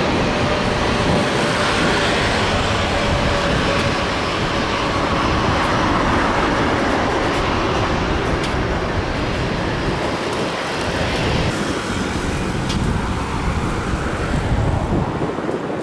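Boeing 737 jet airliners landing: a loud, steady rush of engine noise with a faint thin whine in the first few seconds. The sound changes about eleven seconds in as a second 737 comes in.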